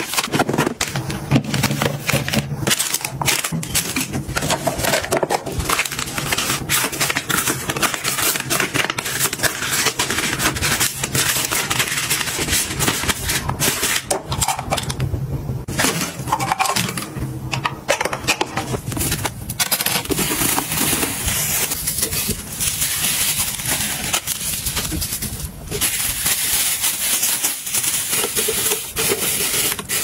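Plastic bags and packaging being handled, crumpled and pressed down into bins: a dense run of crinkling and crackling with many small clicks and knocks.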